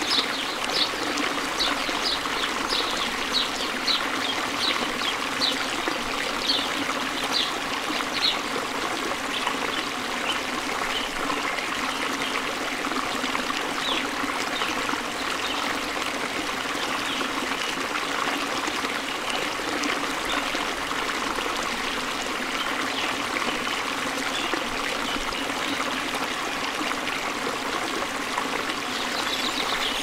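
Steady rushing water from a stream or cascade. Over it, a bird repeats short, high, falling chirps about twice a second for the first eight seconds or so, then calls only faintly and now and then.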